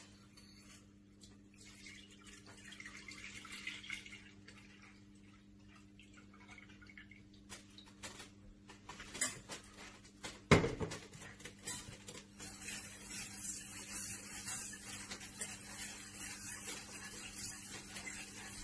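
Milk pouring from a plastic jug into a stainless steel pot, then two sharp knocks about halfway through as the jug is put down. After that comes a wire whisk stirring the milk, with light scraping and clicking against the pot, over a low steady hum.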